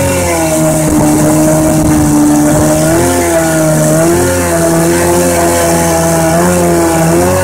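Evinrude 3 hp two-stroke short-shaft outboard running under way, its pitch dipping slightly and recovering a few times, over the hiss of water rushing past the hull.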